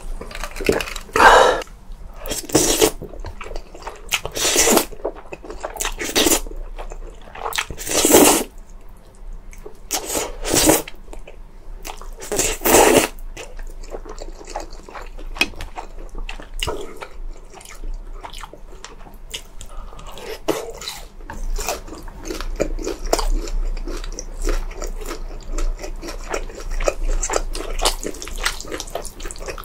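Close-miked eating sounds from a meal of jjajangmyeon, jjamppong and kkanpunggi. There are loud, short wet strokes every couple of seconds in the first half, then quieter, denser chewing through the second half.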